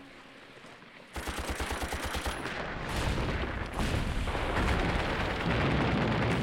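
Rapid machine-gun fire, about ten shots a second, starting about a second in and becoming a dense, louder burst of gunfire that cuts off near the end.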